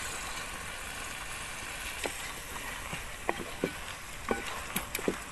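Raw chicken pieces sizzling in a metal pot of onion and tomato frying in coconut oil, with scattered clicks and knocks from about two seconds in.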